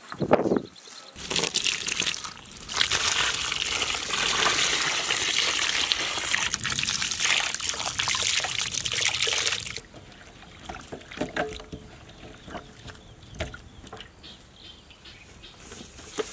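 Water pouring and splashing over raw chicken drumsticks as they are rinsed; it starts about a second and a half in and stops abruptly near ten seconds. After that come quieter small splashes and clicks as the wet chicken pieces are handled.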